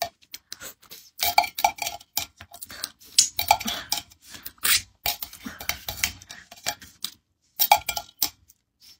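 A spoon scraping and clinking against the inside of an opened metal can, in several short flurries of quick scrapes and taps with brief pauses between.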